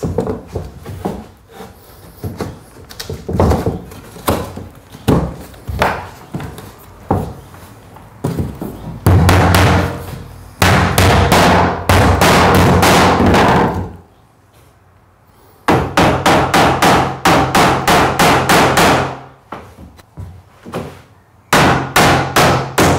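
Hand hammer driving nails into wooden floorboards: scattered lighter blows at first, then fast runs of heavy strikes, broken by a short pause about two-thirds of the way through.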